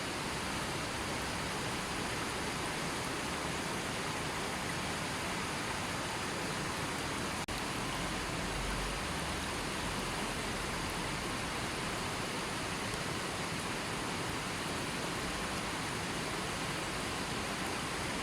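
Gently flowing river water making a steady, even rush, with a brief dropout about seven seconds in.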